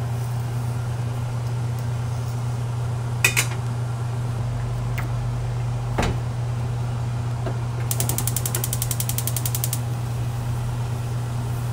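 Steel griddle pan being handled on a gas stove: two sharp metal knocks as it is turned over and worked with tongs, then a rapid ticking scrape for about two seconds as tongs and a paper towel wipe oil across the hot steel, over a steady low hum.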